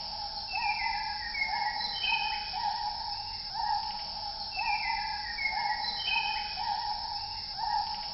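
Night insect and animal chorus: a steady high-pitched insect drone, with a short rising call repeating about every three-quarters of a second and runs of descending chirps every couple of seconds.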